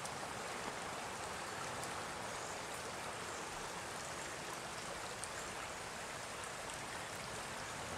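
Shallow rocky creek flowing over stones: a steady, even rush of water.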